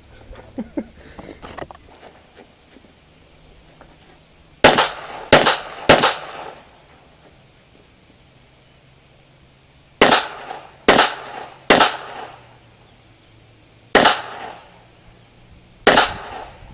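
Glock 22 pistol firing .40 S&W rounds: eight shots, a quick string of three about four and a half seconds in, another string of three about ten seconds in, then two single shots, each with a short echo. A few light clicks come before the first shot.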